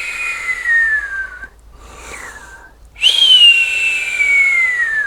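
Cartoon whistling-snore sound effect, a snore whistling like a teapot: a high whistle with a breathy hiss that slides slowly down in pitch and fades about a second and a half in, a short softer breath, then a second falling whistle from about three seconds in.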